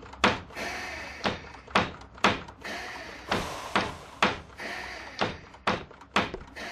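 A run of sharp knocks, about two a second, each with a short ringing tail, set fairly evenly like a beat.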